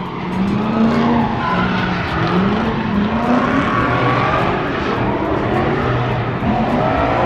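Drift cars sliding around a track, their engines revving up and down in pitch as they hold the slide, over the steady noise of tyres skidding.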